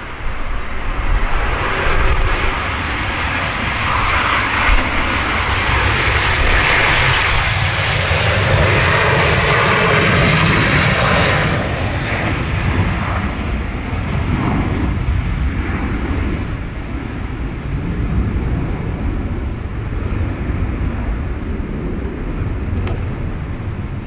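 Jet engines of a Boeing 737-800 airliner roaring at go-around thrust as it passes low and climbs away. The roar swells to its loudest about halfway through, then eases, over a heavy low rumble of typhoon wind on the microphone.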